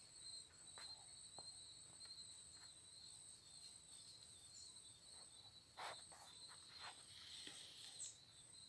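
Crickets chirping in a faint, steady high-pitched trill, with a few soft clicks, the clearest about six seconds in.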